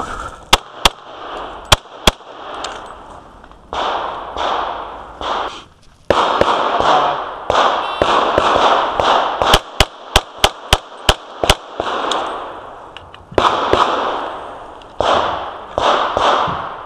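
Glock 35 pistol (.40 S&W) being fired in a practical-pistol stage: three shots about a second in, then a rapid string of about eight shots around ten seconds in. Loud rustling noise fills the stretches between the strings.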